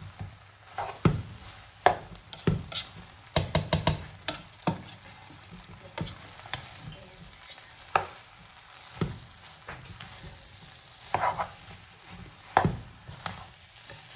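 A spatula stirring and tossing rice noodles and vegetables in a hot pan, knocking and scraping against the pan at irregular moments, with a quick run of knocks about three and a half seconds in. A low sizzle of frying runs underneath.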